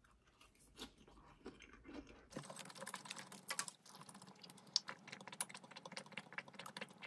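Close-miked chewing of crisp lettuce leaves: a quiet, irregular run of soft crunches and wet mouth clicks.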